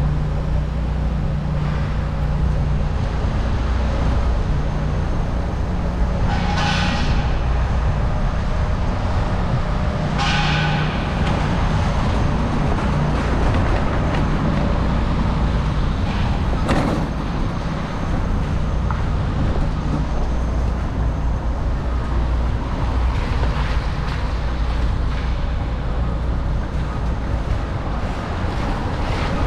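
Steady city traffic noise with a low engine hum. Two short high-pitched squeals come about seven and ten seconds in, and a single sharp knock near the middle.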